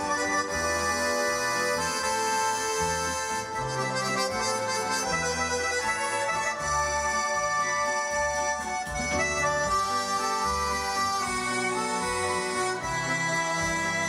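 A duo of accordions playing a melody in sustained, reedy chords, accompanied by a string orchestra with a low bass line that moves about once a second.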